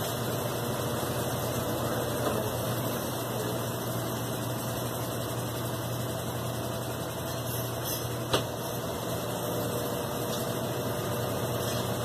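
Consul CWG12 top-loading washing machine running with its drum spinning, a steady motor hum with one short click about eight seconds in.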